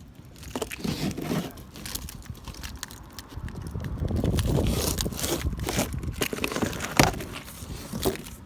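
Large cardboard shipping box being cut and torn open with a key: scraping, ripping and crinkling of packing tape and cardboard, with scattered clicks and a sharp snap near the end.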